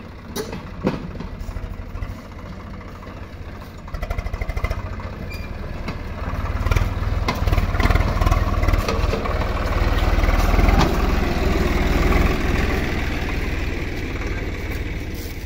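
Swaraj 744 FE tractor's three-cylinder diesel engine running under load as it hauls a sand-laden trailer, growing louder about four seconds in as it comes close, then easing off near the end. A few sharp knocks sound in the first second.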